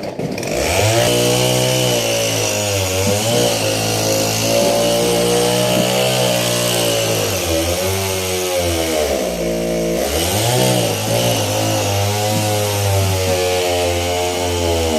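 Small engine running hard at high revs, its pitch wavering; it drops and sags twice in the middle, then climbs back up.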